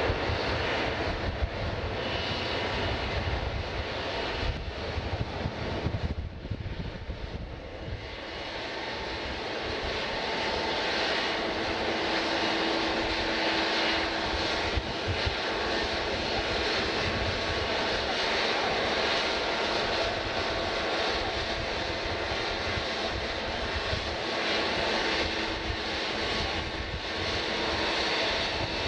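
Airliner engines running steadily, a dense rushing noise with a faint held whine. The sound dips for a moment about six seconds in, then holds steady.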